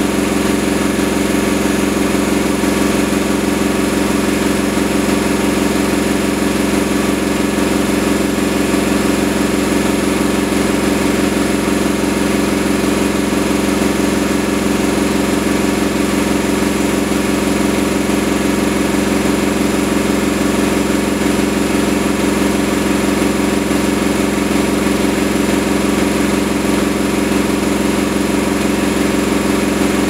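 Whirlpool Indiana 1400 front-loading washing machine in its spin cycle, the drum spinning fast with a steady, unchanging hum of low tones over a mechanical rush.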